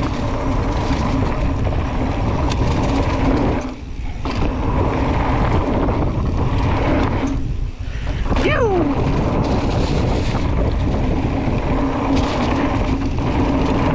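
Mountain bike tyres rolling fast over a dirt jump trail, with wind rushing over the microphone. The noise drops out briefly twice, about four and seven and a half seconds in.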